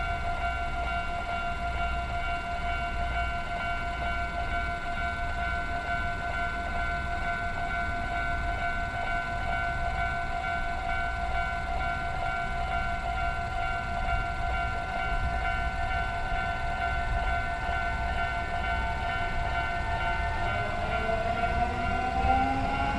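Japanese railroad crossing warning bell ringing in a steady, rapid repeating ding. Near the end a rising whine joins in as a train approaches.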